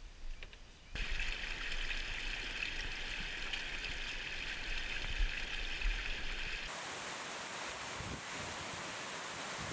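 Rushing water of a rocky mountain stream, starting suddenly about a second in as a steady hiss. Near the end of the first two-thirds it changes abruptly to a smoother, more even hiss of water spilling down a scree slope.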